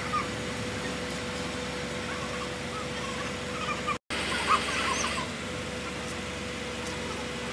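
Truck crane's engine running steadily with a constant hum under load, while small birds chirp now and then. The sound drops out for an instant about four seconds in.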